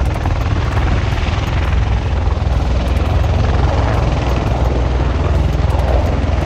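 Military rotorcraft flying overhead, its rotors beating in a fast, steady chop under a loud, continuous rumble.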